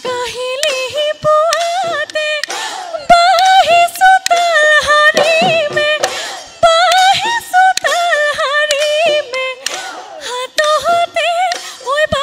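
Live Bihu music: a woman sings a high, ornamented melody with no clear words, her pitch wavering and bending, over sharp strokes of a dhol drum.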